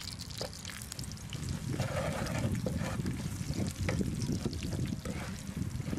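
Chopped garlic sizzling in oil in a frying pan on a portable gas stove, with short clicks of a wooden spatula scraping the pan as it is stirred. A low rumble, louder from about a second and a half in, sits under it.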